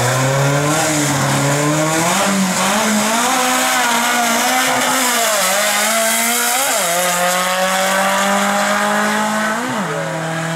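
A 1970s Toyota drag car's engine accelerating away down the strip. The pitch climbs, then drops sharply twice, at about seven and ten seconds in, as it changes gear.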